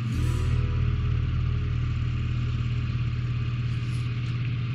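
A steady low mechanical hum, like a small motor running, with a faint rising tone just after the start.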